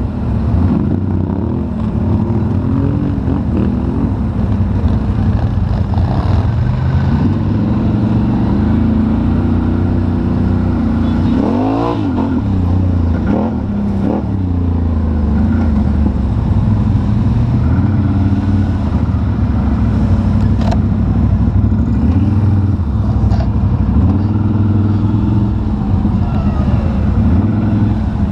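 ATV engines running on the move, the nearest one's pitch rising and falling with the throttle, with a quick rev up and down about twelve seconds in.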